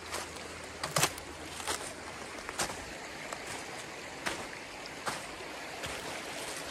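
Stream flowing steadily, with footsteps on the ground: irregular knocks and rustles about once a second.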